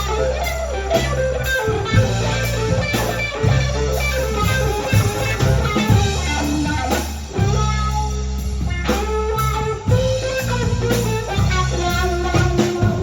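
Live blues band playing an instrumental passage: an electric guitar plays a lead line of single notes over bass guitar and drums.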